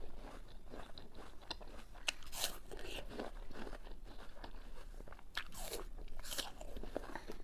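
Close-up eating sounds: crunching bites into a raw apple and chewing, with a few louder crunches scattered through.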